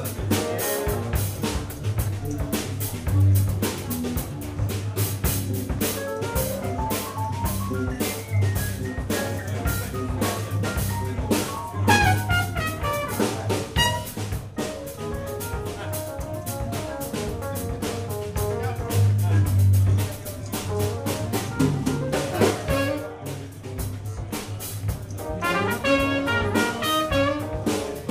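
Small jazz band playing live: drum kit with cymbals and rimshots, electric bass and keyboard, with fast melodic runs over the top around the middle and again near the end.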